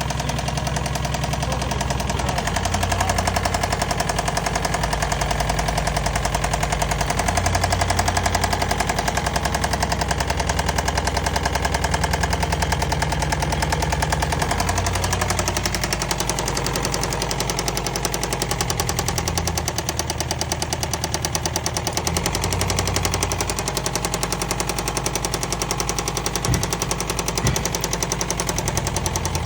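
Car engine running with a rapid, steady knock from a worn connecting rod bearing: rod knock. The engine's low note changes in steps several times.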